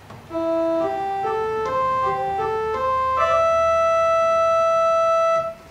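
8-foot principal stop of an Allen ADC-420 digital church organ playing a short single-line solo melody, one note at a time, ending on a long held note that stops just before the end.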